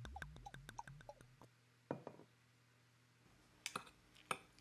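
Faint, short clicks and ticks: a quick run of them in the first second and a half, a couple more about two seconds in, and two or three near the end, over near silence.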